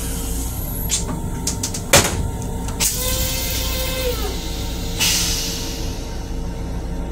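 Train toilet flushing: a sharp click about two seconds in, then water rushing into the stainless steel bowl with a short whine that drops in pitch, and a hissing rinse that starts suddenly about five seconds in. A steady low rumble runs underneath.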